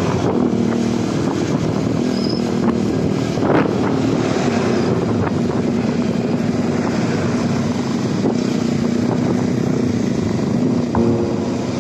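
Motorcycle engine running steadily while riding in traffic, over wind and road noise.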